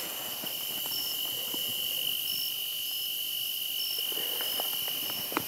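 Insects calling in the grass: a steady, high, unbroken trill, with a second, higher chirp repeating about once a second. A sharp click comes near the end.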